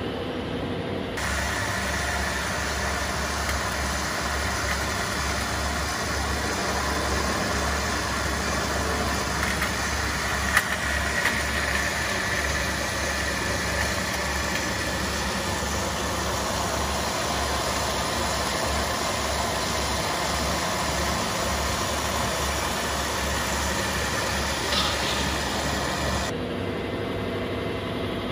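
Radio-controlled model truck's engine sound idling steadily, with a low pulsing throb. The sound changes abruptly about a second in and again near the end.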